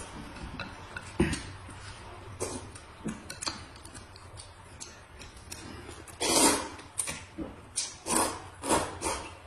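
Noodles being slurped from a bowl, one long slurp about six seconds in and three or four shorter ones near the end, with scattered small clicks before.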